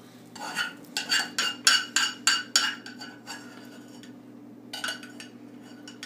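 A knife sawing through a crisp, panini-pressed grilled cheese sandwich on a paper plate: about nine quick scraping strokes in two seconds, then a shorter burst about five seconds in.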